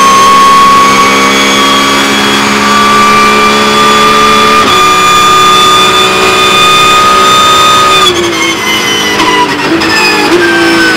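Porsche 911 GT3 Cup race car's naturally aspirated flat-six under full throttle, heard onboard, rising steadily in pitch with an upshift about halfway through. Near the end the driver lifts off: the pitch falls under braking, with three quick downshifts, each a short jump in pitch.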